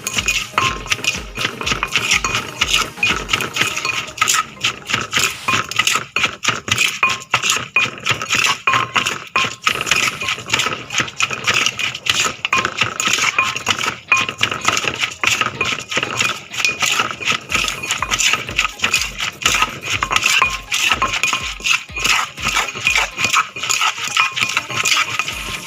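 Dense, irregular clattering and rattling of a pestle and spoon in a mortar as som tam is mixed, over background music with a steady beat.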